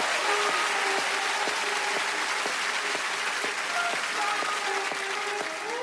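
Studio audience applauding, slowly dying down. Beneath it a soft musical intro starts, with steady held notes and a light pulse about twice a second.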